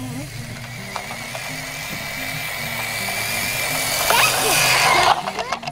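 Radio-controlled scale Toyota Land Cruiser pickup driving over dirt. Its small electric motor and gears whine and grow steadily louder as it comes close, then cut off suddenly about five seconds in. Background music with a low bass line runs underneath.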